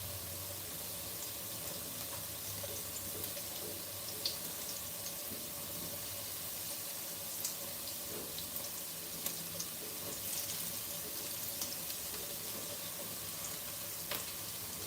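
Carrots sizzling in hot oil in a frying pan: a steady hiss with scattered sharp pops and crackles.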